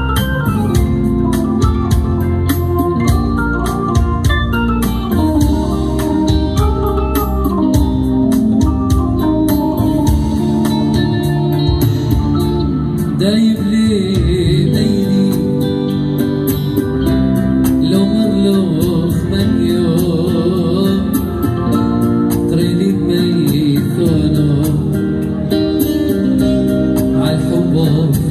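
Live band music: an arranger keyboard plays an organ-toned melody over a programmed drum beat, with electric guitar. A man starts singing about halfway through.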